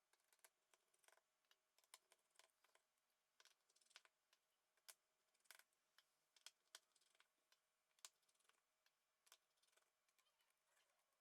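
Near silence with faint, irregular small clicks: a Phillips screwdriver working the tiny screws of a smartphone's middle frame.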